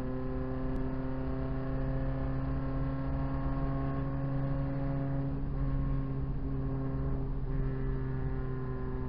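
Proton Saga race car's four-cylinder engine running flat out at high, steady revs down a straight, heard from inside the cabin, with two brief dips in the sound over the second half.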